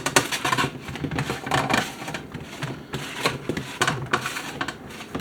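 Hands pressing and spreading oiled dough out flat, making irregular quick taps and clicks.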